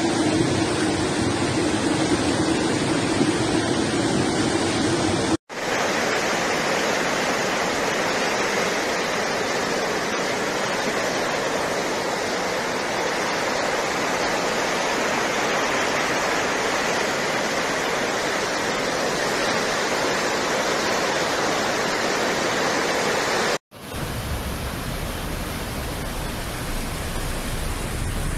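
Fast-flowing muddy floodwater rushing in a steady, loud torrent, with two abrupt cuts between clips, about five seconds in and a few seconds before the end. In the last few seconds the noise is quieter and carries a low hum, heard from inside a car on a flooded road.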